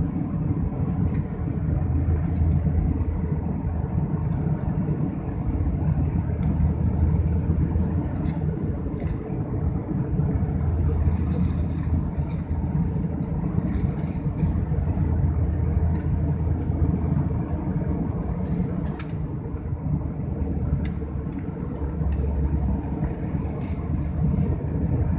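Steady cabin drone of an Airbus A320-family airliner in the climb after takeoff: engine and airflow rumble, heaviest in the low end, with a faint hiss above that swells slightly now and then.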